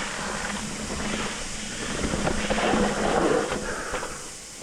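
Trek Rail 7 electric mountain bike riding down a dirt trail: tyres rumbling over the ground and wind buffeting the microphone, with scattered clicks and rattles from the bike.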